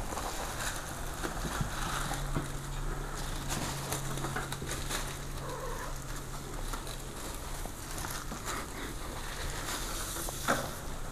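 Thin plastic carrier bag rustling and crinkling as it is dragged over a wooden floor and grabbed at by a cat, with scattered light taps and scrapes.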